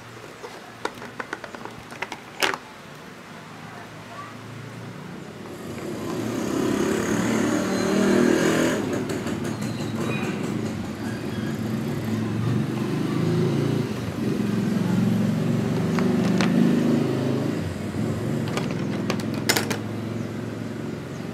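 A few light clicks near the start, then the low, steady rumble of a motor vehicle swells up about five seconds in and carries on.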